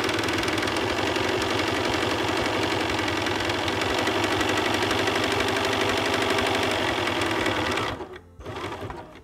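Computerised sewing machine sewing a dense zigzag stitch at a steady, fast, even pace, stopping suddenly about a second before the end. It is the second of two zigzag rows along the filter-pocket opening, with a narrow channel left between them to be cut later.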